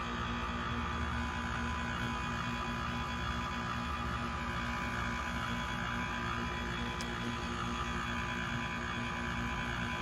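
2007 Goodman GSH13 heat pump's outdoor unit running in its defrost cycle: a steady compressor hum with a few constant tones, and a faint tick about seven seconds in.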